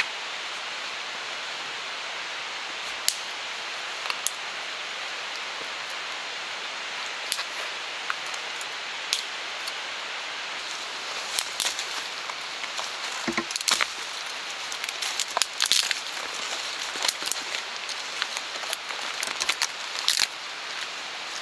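Dead twigs and small branches snapping and cracking. There are a few single snaps at first, then a dense run of cracks through the second half, over a steady hiss.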